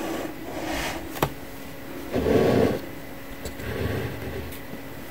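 Handling noises at a sewing machine as it and the fabric are moved into place: a sharp click about a second in, then a short, louder rustle about two seconds in.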